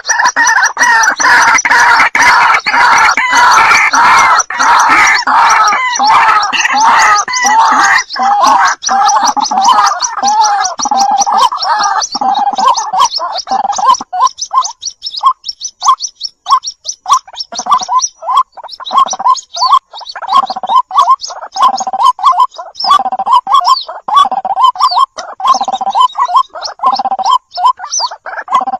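White-breasted waterhen calling: a dense, rapid run of harsh, gargling croaks for about the first twelve seconds, then, after a short gap, a slower series of short repeated croaks, a little more than one a second.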